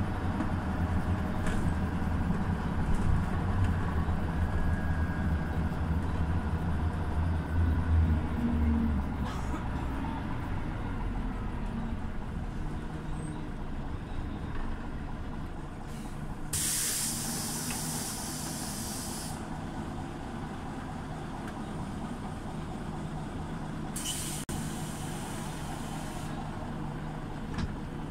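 Scania OmniLink city bus running, heard from inside: a low engine rumble, heavy for the first eight seconds or so, then lower. Twice, about 16 and 24 seconds in, the bus's compressed-air system lets out a sharp hiss lasting two to three seconds.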